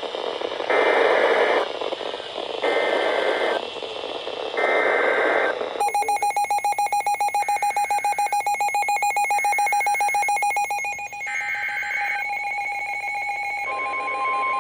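Emergency Alert System signalling: three harsh digital data bursts of the header code, about a second each, then a fast-pulsing electronic alarm tone for several seconds, a short data burst, and a steady beep-like tone that starts near the end. These tones mark the start of a new alert, here a tornado warning.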